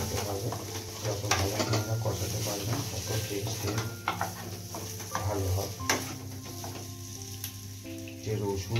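Whole boiled potatoes frying in spiced mustard oil in a steel kadai: sizzling, with irregular clicks and knocks as they are stirred against the pan, over a steady low hum.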